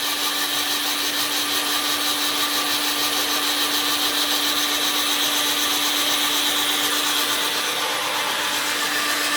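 Electric Nerf gun motor running continuously: a steady whirr with one constant tone under it.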